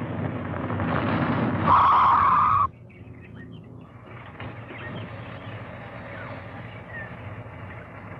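A large 1960s sedan speeding in on a dirt road, growing louder, then a loud tyre skid lasting about a second as it slides to a stop, cut off suddenly. A quieter low rumble follows.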